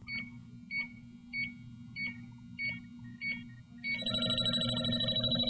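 Electronic refrigerant leak detector (JB Industries LD-5000 Prowler) beeping in its ready state: six short, even high beeps about every 0.6 seconds. About four seconds in, a louder, denser ringing tone takes over.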